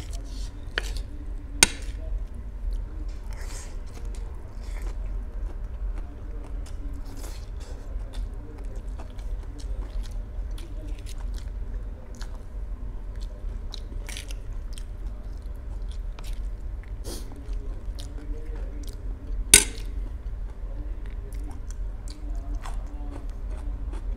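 A person chewing a mouthful of noodles, with short clicks of a metal spoon and fork against a steel plate; two of the clicks, about a second and a half in and near twenty seconds, are sharp and much louder.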